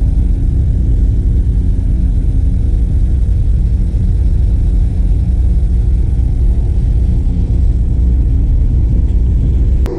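Steady low machinery rumble with a constant hum from a cargo ship's machinery and deck cranes running during cargo unloading. A short click comes just before the end.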